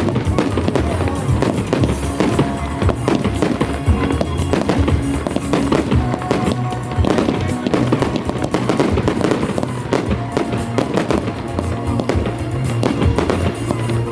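Fireworks going off in a rapid, continuous run of bangs and crackles, mixed with loud music.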